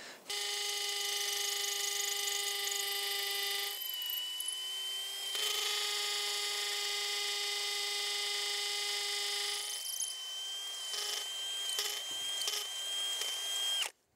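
Cordless drill running steadily as it bores into the cottage's brick wall, a high whine whose tone shifts about four seconds in and again near ten seconds, then stops suddenly near the end.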